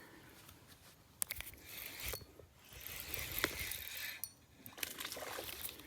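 Fishing reel ratcheting and clicking as its drag is being set, with a few sharp separate clicks scattered through.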